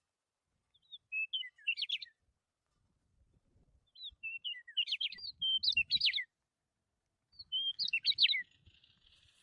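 A songbird singing three short phrases of quick, sweeping chirps and whistles, each about a second or two long, separated by pauses of silence.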